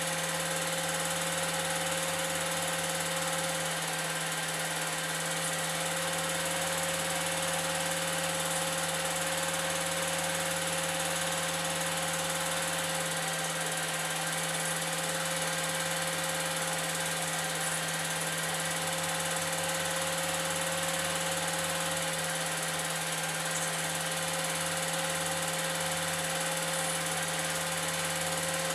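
Old 8mm film projector running steadily: an even motor-and-fan hum with the whir of the film mechanism, at one unchanging pitch and level.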